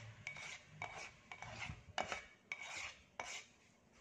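A utensil scraping the inside of a pan in short repeated strokes, about two a second, with a faint squeak in each stroke, as thick, sticky sauce is scraped out.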